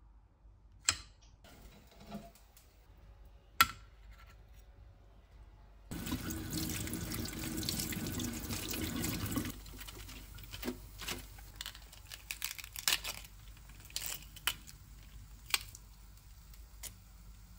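Two sharp knocks in the first few seconds. Then a kitchen tap runs into a stainless steel sink for about three and a half seconds as lettuce leaves are rinsed under it. After the water stops, small crackles and rustles of lettuce leaves being handled and torn.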